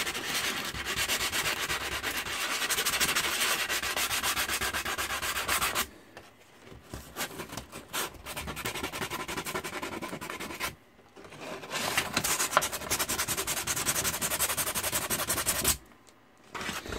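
F2 grit sandpaper rubbed by hand back and forth over a black acrylic-painted canvas, sanding down dried blobs of paint. It comes as rapid strokes in three bouts with short pauses between them, and stops about a second before the end.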